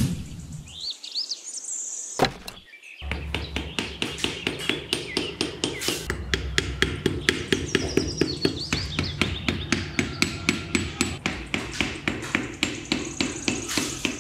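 A hammer striking in quick, even blows, about four a second, starting about three seconds in after a single knock. Birds chirp at the start.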